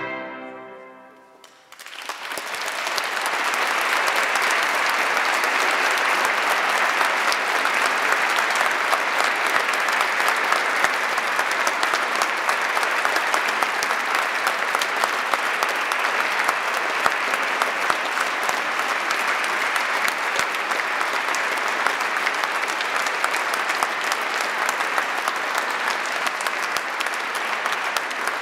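The last chord of bagpipe and organ music dies away in the church's reverberation, and about two seconds in a congregation breaks into applause, which swells and then holds steady.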